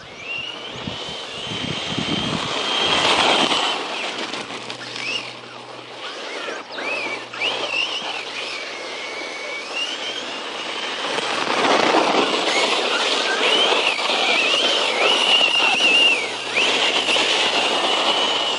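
Brushless electric motor of a 1/10 scale RC truck whining, its pitch rising and falling as the truck speeds up and slows down, over the rushing noise of the tyres on the ground.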